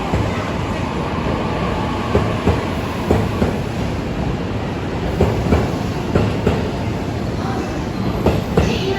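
E257 series electric train rolling slowly past, its wheels knocking over rail joints in paired clacks that repeat every few seconds over a steady rumble.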